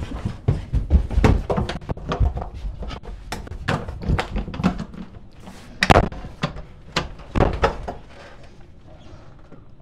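A run of irregular thumps and bangs, the two loudest about six and seven and a half seconds in, dying away about eight seconds in.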